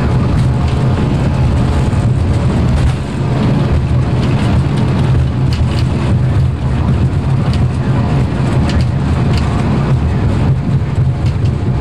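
Airbus A340 flight deck during the takeoff roll at takeoff thrust: a loud, steady low rumble of engines, rushing air and wheels on the runway, with light knocks and rattles through it.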